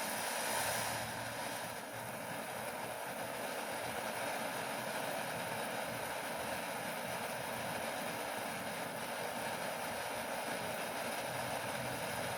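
Phantom Fireworks 'Electrical Shock' ground fountain burning with a steady hiss of spraying sparks.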